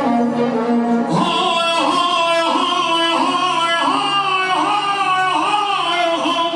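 Music: a sung melody with wavering, ornamented phrases over instrumental accompaniment, the voice line starting about a second in.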